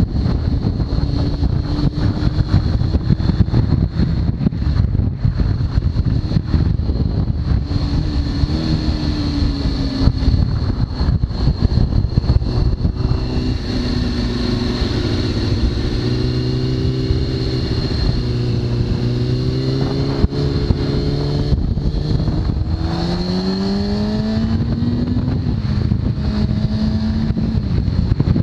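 2003 Kawasaki ZX-6R's inline-four running through a full Hindle titanium exhaust, heard from the rider's position with heavy wind rush over the microphone. The revs hold fairly steady through the middle, then climb sharply as the bike accelerates, dropping once at a gear change before settling.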